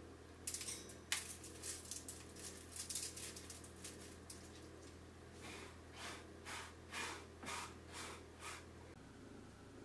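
Hands handling a spice-rubbed pork joint: soft irregular rustles and pats as it is lifted and set on the rack of a foil-lined roasting pan. Then comes a run of short strokes, about two a second, as a hand rubs across the wooden cutting board. Under it all is a low steady hum that changes near the end.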